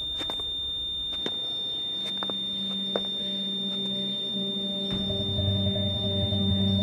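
Hospital patient monitor sounding one steady, unbroken high tone, the flatline alarm of a patient whose heart has stopped. A few soft clicks sound early on, and low sustained music comes in about two seconds in and grows louder from about five seconds in.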